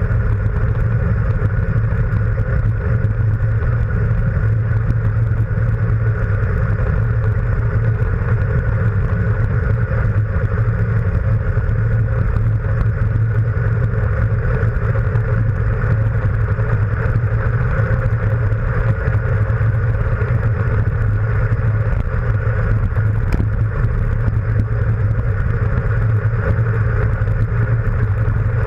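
Steady, loud wind rush buffeting a handlebar-mounted camera's microphone, mixed with road rumble from a road bike descending fast. The noise holds even throughout, with no passing vehicles or other events standing out.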